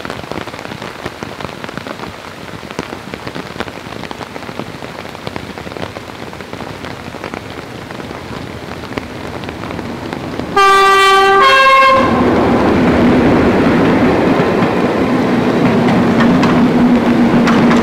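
Steady rain, then about ten and a half seconds in a diesel train sounds its two-tone horn, a lower note followed by a shorter higher one. Right after the horn its diesel engine noise comes in loud and stays loud, with a steady hum under it.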